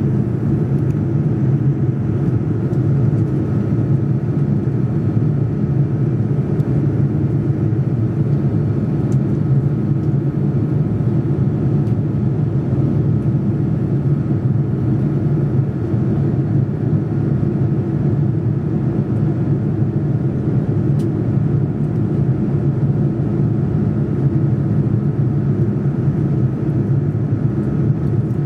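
Steady cabin noise inside a Boeing 787-9 Dreamliner in the climb after takeoff: a low, even rush of engine and airflow noise with a faint steady whine above it.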